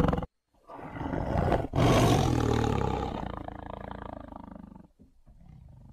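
Tiger roaring: a shorter call builds up about half a second in, then a louder, longer roar from about two seconds in fades away over the next three seconds.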